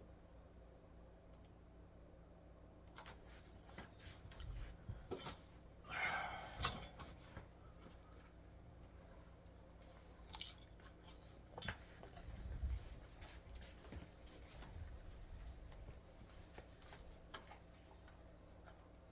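Faint scattered clicks and knocks of handling, with a brief rustle about six seconds in.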